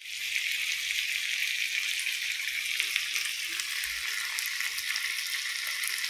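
Chicken leg pieces frying in hot oil on a cast-iron tawa: a steady sizzle with fine crackling.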